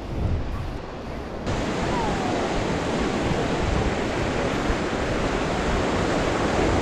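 Ocean surf breaking and washing up the sand close by: a steady rush of water that gets abruptly louder and fuller about a second and a half in.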